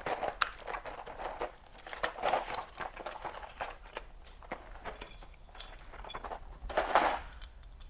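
Plastic hardware bag crinkling and rustling in the hands in short irregular spells, with a few small clicks, the loudest rustle near the end.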